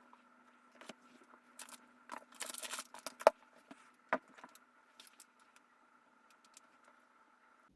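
Objects being handled: scattered small clicks, a short rustle, then a sharp tap about three seconds in and a softer knock a second later, over a faint steady hum.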